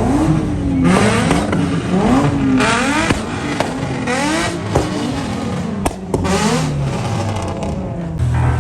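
High-revving car engine revved repeatedly, its pitch climbing steeply and dropping back several times, with a sharp pop about six seconds in.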